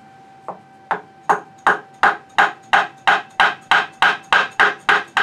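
Wooden mallet striking the end of a Spanish cedar tool handle in a steady run of sharp knocks, about three a second and quickening slightly, driving a thread chaser's steel tang into the handle. One lighter tap comes first.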